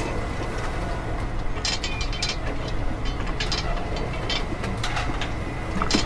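Small geared electric motor of a miniature working model running with a steady gear rattle and ratcheting clicks, with a few sharp clicks on top.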